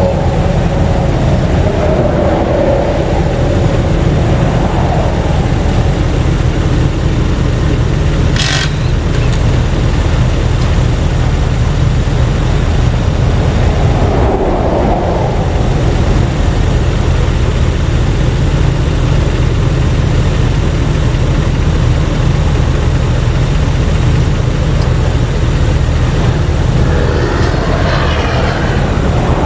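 Steady heavy-vehicle engine drone with road and traffic noise, unbroken throughout, with one brief sharp high sound about eight seconds in.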